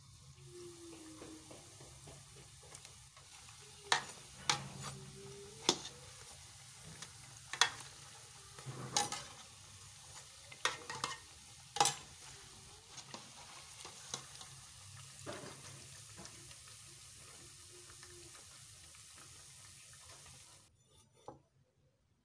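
Kaswa dough balls deep-frying in hot oil in an aluminium pot, a steady sizzle, with sharp clicks and knocks of a metal slotted spoon against the pot in the first half. The sizzle cuts off suddenly near the end.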